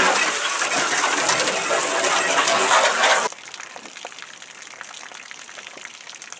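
Water from a hose spraying into an empty glass aquarium tank, a loud hissing rush that cuts off suddenly about three seconds in.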